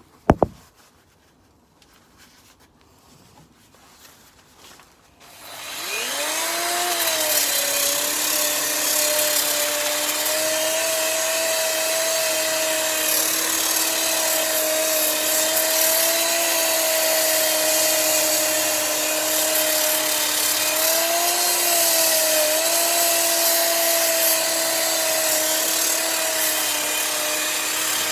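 A sharp knock just after the start, then about five seconds in an angle grinder starts up, its whine rising to speed, and runs steadily as its disc grinds the weathered surface off an old spruce barn beam, the pitch wavering slightly as it is pressed into the wood.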